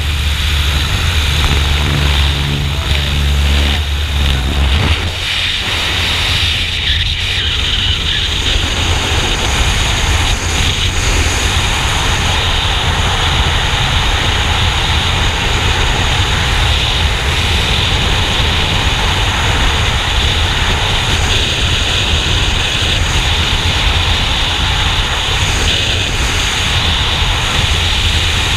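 A small plane's propeller engine drones steadily as skydivers climb out onto the wing strut and let go. About five seconds in the hum gives way to a loud, steady roar of freefall wind buffeting the helmet camera's microphone.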